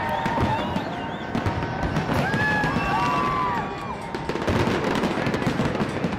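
Fireworks bursting and crackling in quick succession, with spectators calling out over them.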